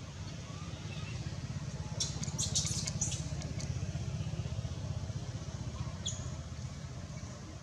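A quick run of short, high-pitched squeaks about two seconds in and one more a few seconds later, over a steady low rumble.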